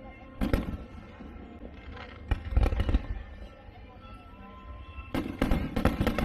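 Fireworks bursting in volleys over music: one bang about half a second in, a quick cluster of bangs a couple of seconds later, and another rapid cluster near the end.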